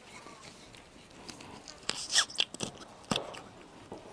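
Kitchen knife cutting through a trevally's head behind the gill cover on a wooden board: a run of short crunching cuts from about two seconds in, then a sharp click a second later.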